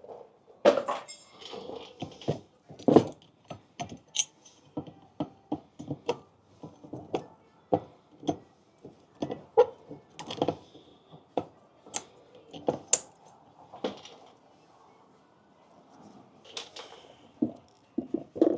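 Metal tools and brake parts clinking and knocking as they are handled: irregular sharp taps and clanks, a few louder knocks among lighter clicks.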